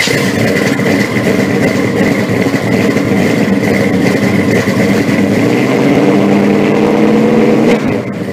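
A car engine running steadily at high volume, its note rising slightly about six seconds in, then cutting off near the end.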